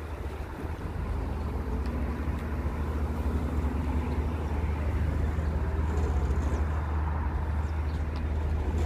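Wind buffeting the phone's microphone, a low rumble that grows steadily louder, over faint car-park traffic.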